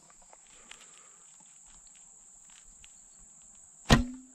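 A steady high insect chirring while the bow is held at full draw, then about four seconds in the Grozer Assyrian biocomposite recurve horse bow is loosed: a sharp snap of the bowstring followed by a short low hum as the string vibrates.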